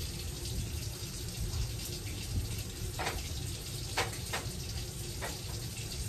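Steady rush of water running from a kitchen tap, with a few light knocks in the second half as a stovetop and its pans are wiped down with a cloth.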